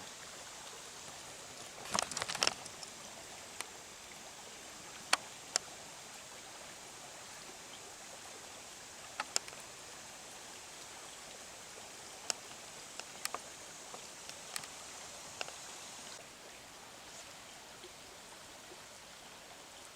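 Steady, faint rush of a small mountain stream, with scattered sharp clicks and knocks: a short cluster about two seconds in, then single ones every second or few.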